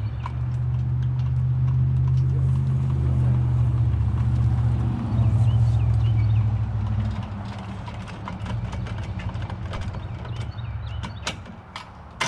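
A utility vehicle's engine running under load as it tows a log arch over rough ground, with scattered clanks and snaps. The engine eases off about seven seconds in.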